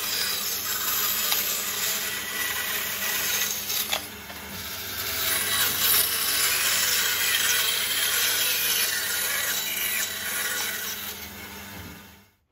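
Band saw cutting through a bundle of bamboo tubes packed with coloured wooden pencils, a steady cutting noise over the saw's low hum. The cut eases briefly about four seconds in, then the sound fades out near the end.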